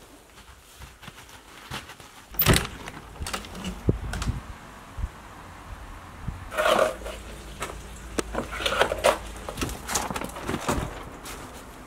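A sharp knock about two and a half seconds in, then irregular bursts of rustling and scraping from dry fallen leaves being stirred underfoot or swept, over a low steady rumble.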